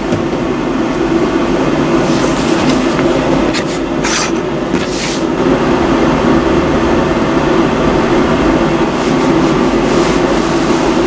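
Portable salon hood hair dryer running steadily: the fan motor's hum with a rush of air. A few short bursts of higher hiss come about two seconds in and again around four to five seconds in.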